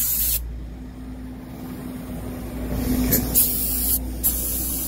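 Compressed air hissing through a dial-gauge tire inflator clamped on a car tire's valve, as the tire's pressure is set. A short burst right at the start, then several bursts about three seconds in that turn into a steady hiss near the end, over a steady low hum.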